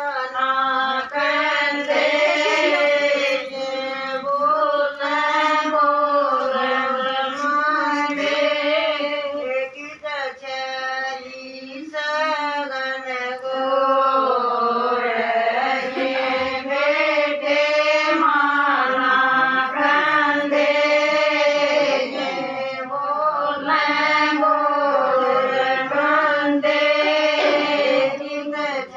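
Women singing a Haryanvi Hindu devotional song (bhajan) to Krishna, a melodic chant with the voice lines rising and falling.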